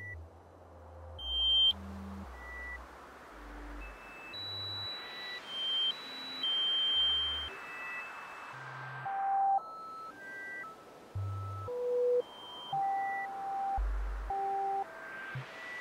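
Abstract electronic noise music: short steady sine-like beeps at scattered pitches, some high and some deep bass, sound one after another over a hiss that slowly darkens and brightens again. The loudest beep is a high tone about two seconds in that cuts off sharply.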